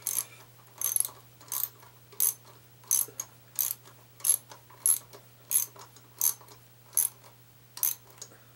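Socket ratchet wrench clicking in short bursts on each back-swing, about one and a half strokes a second, as it runs down the lock nuts on the connecting-rod bearing cap.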